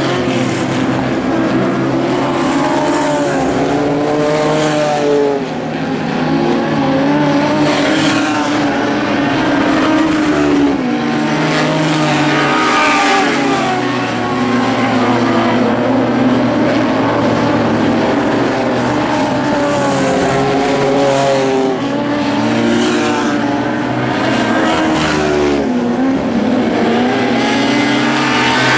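Engines of several Lightning Sprint cars racing on a dirt oval, their pitch rising and falling over and over as they accelerate down the straights and back off into the turns.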